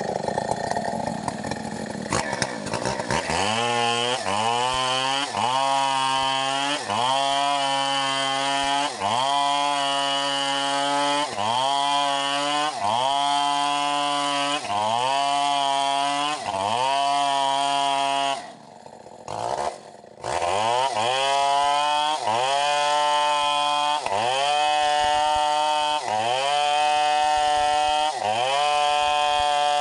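Stihl 070 two-stroke chainsaw running hard, its engine speed repeatedly sagging and climbing back about every second and a half, as when cutting under load. The sound briefly drops away for about two seconds about two-thirds of the way through, then the saw runs on.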